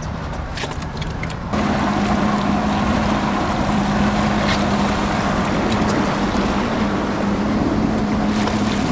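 Johnson V6 outboard motor running with a steady hum, with water rushing past the hull and wind on the microphone. The sound steps up in level about a second and a half in and then holds steady.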